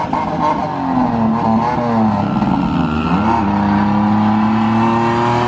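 Pontiac Firebird's engine revving up and down, then held at high revs for about two seconds in the second half. The rear wheels are spinning in the snow and the car is not moving.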